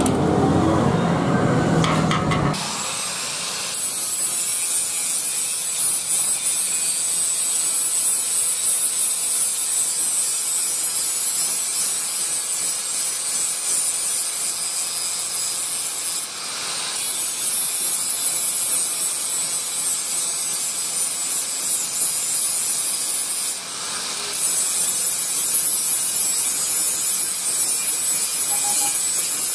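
Handheld electric angle grinder grinding the edge of a forged steel billhook blade: a steady, loud grinding noise that starts a few seconds in, broken twice by brief dips where the disc comes off the metal.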